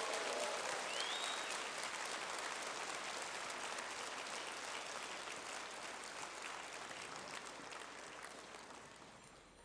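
Large audience applauding, the clapping gradually dying away.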